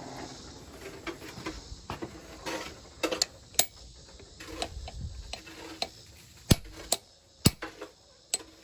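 Hammer blows on hot steel over an anvil: scattered sharp, ringing strikes at uneven spacing, with lighter metallic clinks between them, the hardest blows in the second half.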